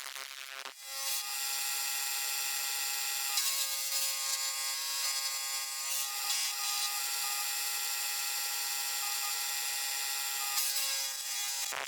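A power tool running steadily: a high whine with a rasping edge that starts about a second in and stops near the end.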